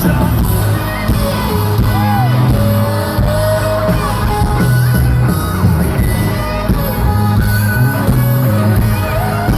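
Live country-rock band playing loudly through a concert sound system, with singing and shouts from the crowd.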